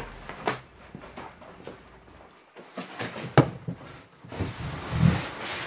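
Large cardboard shipping box being lifted and handled, rustling and scraping, with a few sharp knocks, the loudest about three and a half seconds in.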